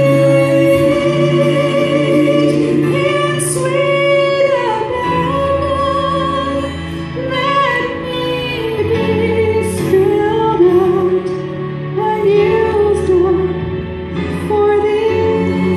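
A woman singing a slow song into a handheld microphone, holding long notes with vibrato, over a steady instrumental accompaniment.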